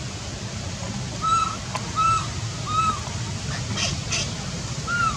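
Baby macaque whimpering: four short, arched cooing calls about a second apart, with a couple of harsher cries about two-thirds of the way in.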